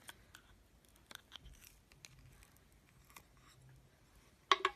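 Light clicks and crackles from handling Crazy Aaron's Thinking Putty in its metal tin, with a short burst of louder crackling clicks near the end.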